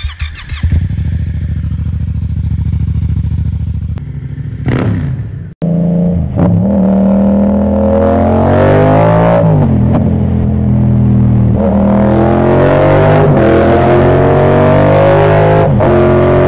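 Yamaha MT-07's parallel-twin engine through an Akrapovic exhaust. With the dB killer removed, the parked bike idles, with a quick throttle blip about four and a half seconds in. After a cut, the bike accelerates on the road, its pitch rising through the gears with several upshifts.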